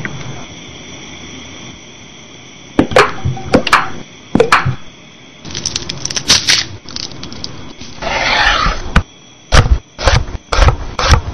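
Scattered sharp clicks and knocks, then a quick run of loud knife chops on a wooden cutting board in the last couple of seconds.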